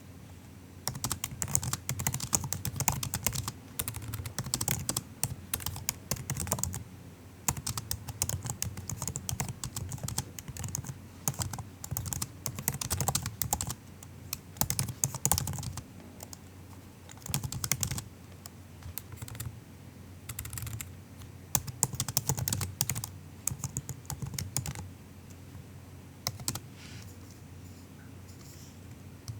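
Typing on a MacBook's built-in keyboard: soft, quick key clicks in runs of several seconds broken by short pauses, with a longer lull near the end.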